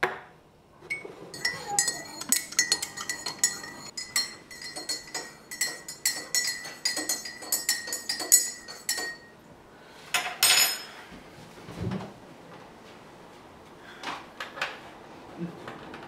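A teaspoon stirring in a ceramic mug, clinking quickly and repeatedly against its sides for about eight seconds. A louder clatter comes about ten seconds in, then a few quieter knocks.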